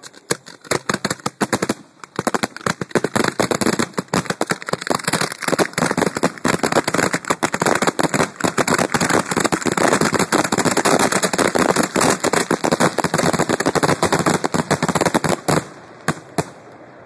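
Display fireworks heard close up from the firing site, going off in a dense, rapid barrage of sharp bangs and crackles with many reports a second. The barrage stops abruptly about a second and a half before the end, with a few last reports after.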